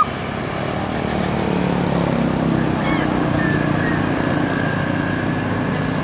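Tour bus engine running as the bus drives away along the road, over steady traffic noise. A faint, thin steady tone comes in about halfway through.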